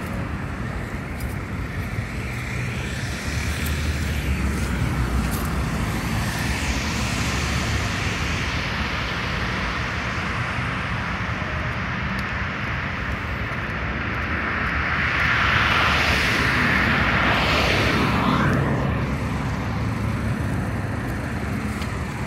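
Road traffic: cars driving past on a city street. One car passes close about three-quarters of the way through, its sound swelling and then falling away.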